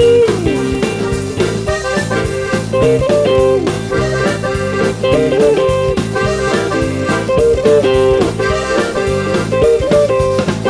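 Zydeco song playing, with guitar over a steady beat.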